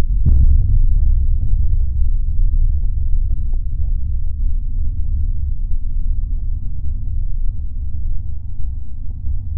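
Fireworks played back slowed down, heard as a deep rumble: a burst about a quarter second in, then scattered crackles over a steady low rumble.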